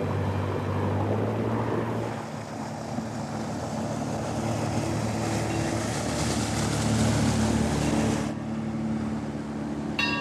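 Motorboat engine running steadily, with water rushing along the hull; the rush cuts off suddenly about eight seconds in. Right at the end a bell buoy's bell is struck once and rings.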